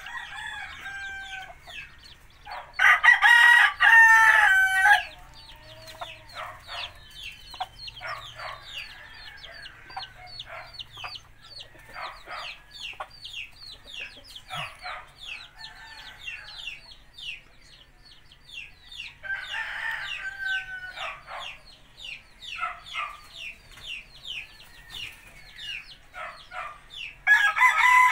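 Chickens calling: a steady run of short, falling peeps, broken by louder, longer calls about three seconds in, around twenty seconds in and near the end.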